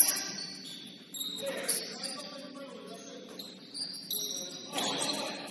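Basketball shoes squeaking in short, high-pitched chirps on a gym floor during play, with a sharp thud at the start and faint voices under it.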